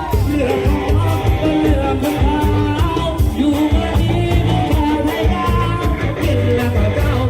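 Loud live music from a Thai rot hae sound-truck band: a singer over a driving drum beat and heavy bass.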